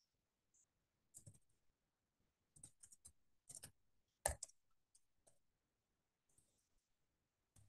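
Faint computer keyboard keystrokes: scattered single clicks and short runs of clicks with pauses between them, the loudest about four seconds in.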